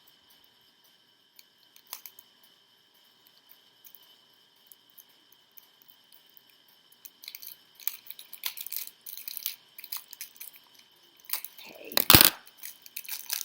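Plastic packaging crinkling and rustling as switch plate covers are handled and pulled out of their protective covering. A few light clicks at first, then busy crackling for the last few seconds, loudest about twelve seconds in.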